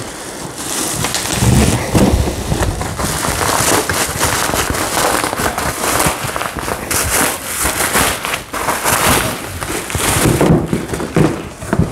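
Plastic bubble wrap crackling and rustling as it is pulled and unwrapped from coilover suspension parts, with many small crackles close together.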